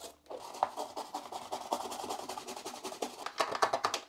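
Toothbrush scrubbing the crevices of a wet plastic toy playset in soapy water: a quick run of rough brushing strokes, louder near the end.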